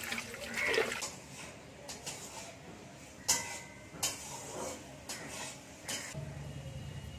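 Tap water splashing into a metal bowl of fish for about the first second, then a few sharp separate clinks and knocks of a metal bowl and utensils.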